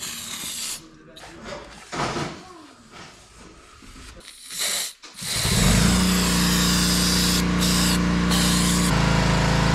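Aerosol brake cleaner sprayed in short hisses, then about five seconds in an electric vacuum motor starts up and runs loudly and steadily, its pitch shifting slightly near the end.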